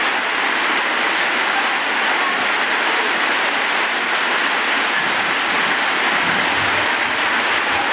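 Heavy rain pouring onto a flooded road: a loud, steady hiss of rain on standing water. A faint low engine hum from passing traffic joins near the end.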